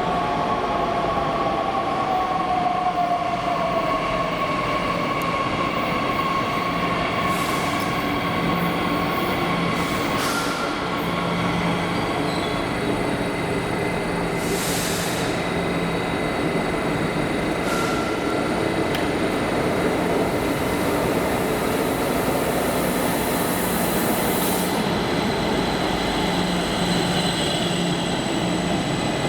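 Electric train in the underground station, its motor whine falling in pitch over the first few seconds as it slows. Steady high tones continue after that, with several short hisses of air and a longer hiss later on.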